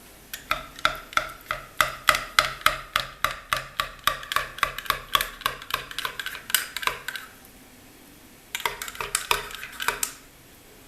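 A spoon stirring warm milk and honey in a cup, clinking rhythmically against the side about four times a second. The stirring stops about seven seconds in, then resumes briefly for a few more clinks near the end.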